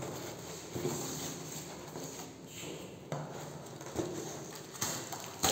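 Hands handling a plant parcel's packaging of cardboard, dry wrapping and plastic: rustling and crinkling, broken by several sharp clicks and knocks, the loudest near the end.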